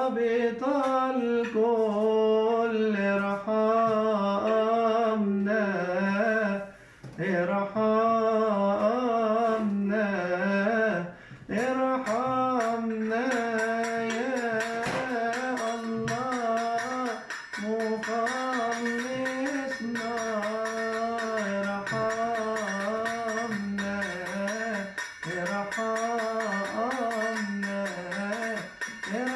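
A man's voice chanting a Coptic hymn in long, ornamented melismatic phrases without clear words, pausing briefly about 7 and 11 seconds in.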